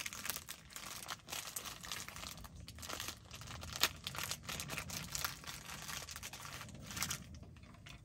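Thin plastic bag of marshmallows crinkling and rustling in the hands as marshmallows are pulled out of it, with sharper crackles about halfway through and again near the end.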